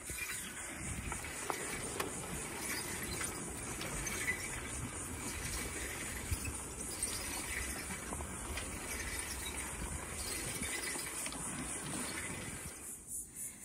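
A steady rushing hiss that cuts off sharply shortly before the end.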